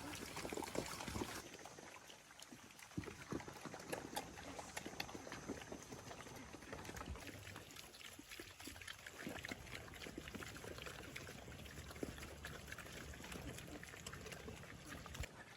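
Pigs eating: a dense, wet crackle of chewing and slurping with many small clicks.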